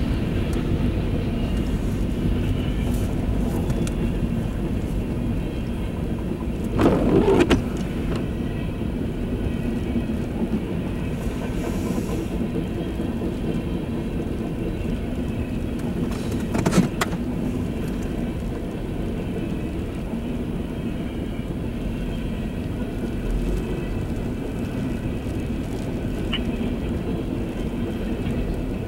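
Freight train of gondolas and tank cars rolling steadily past a grade crossing: a continuous rumble of steel wheels on rail, heard from inside a car. There is a brief louder clatter about seven seconds in and a short sharp one near seventeen seconds.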